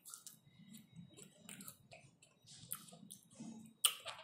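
Close-up mouth sounds of eating an ice cream bar: small wet lip smacks, licking and chewing, with one sharper smack near the end.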